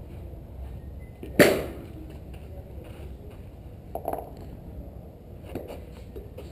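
A single sharp crack of a golf club striking a ball about a second and a half in, with a short fading tail; a softer knock follows a few seconds later.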